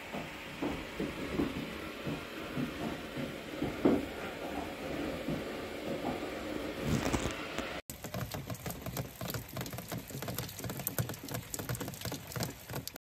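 Steady rain. For the first eight seconds it is a muffled hiss heard from indoors behind the window; after a cut it is close, a dense pattering of drops on wet ground and concrete. It cuts off suddenly at the end.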